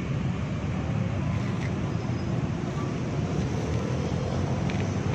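Steady low rumble of road traffic with wind buffeting the microphone.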